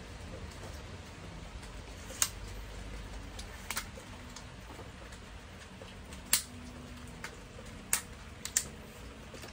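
Irregular sharp clicks and ticks, about seven in all, some in close pairs, over a faint low rumble.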